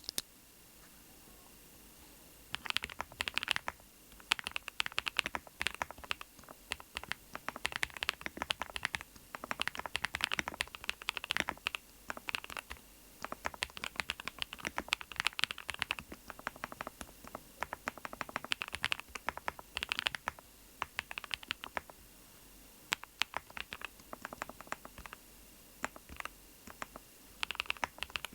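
Typing on a NuPhy Node75 HP mechanical keyboard: quick runs of key clicks in bursts separated by short pauses, starting about two and a half seconds in.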